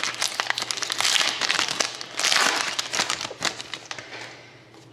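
Trading card pack wrappers being torn open and crinkled: a dense crackle of plastic that thins out near the end.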